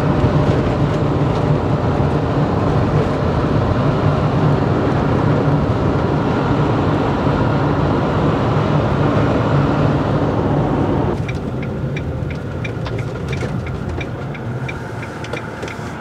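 Motorhome cabin noise while driving: steady engine and road noise that drops off about eleven seconds in as the vehicle slows. Then a regular ticking of about three clicks a second, the turn indicator, as it pulls into a parking spot.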